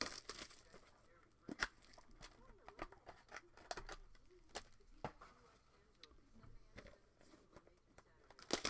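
Trading card packs and box being handled and torn open: irregular crinkling and tearing of the wrapper with scattered light clicks, loudest just at the start and again near the end.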